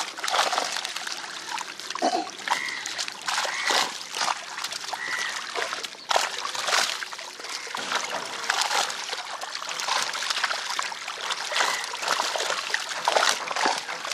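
A crowded mass of tilapia thrashing at the water surface, giving a constant, irregular splashing and slapping of water.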